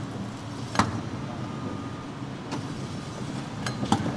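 Baltimore Transit PCC streetcar 7407 rolling slowly by with a steady low rumble. Two sharp clicks come about a second in and near the end.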